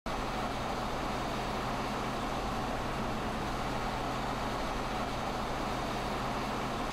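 A car driving steadily on a road: a low, even engine hum under constant tyre and wind noise.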